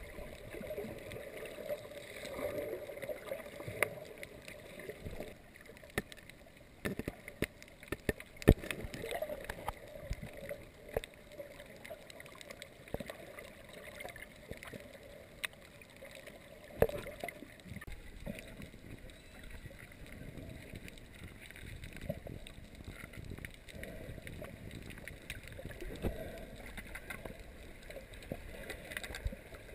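Muffled underwater sound through a GoPro's waterproof housing: a low wash of moving water with irregular sharp clicks and knocks, the loudest about eight seconds in and again about seventeen seconds in.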